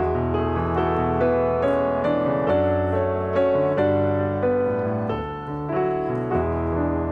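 Background piano music, a slow melody over sustained bass notes.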